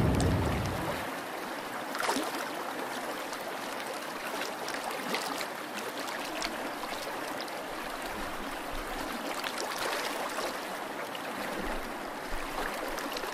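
Water trickling and gurgling around a sinking cardboard model ship, with many small irregular pops and crackles and one louder click about two seconds in. A low rumble fades out in the first second.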